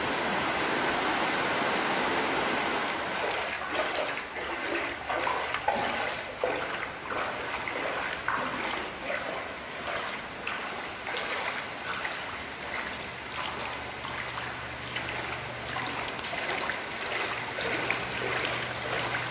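Floodwater rushing across a floor, with irregular splashing. A low steady hum joins about two-thirds of the way through.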